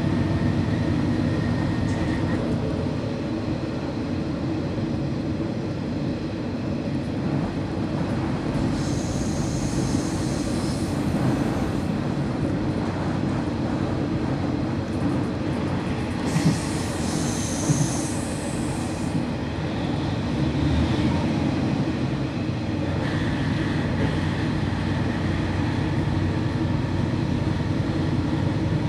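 KiHa 40 single-car diesel railcar heard from inside the cabin while running: a steady diesel engine drone over the rumble of the wheels on the track. Two spells of high-pitched hiss or squeal come about a third and about two-thirds of the way through.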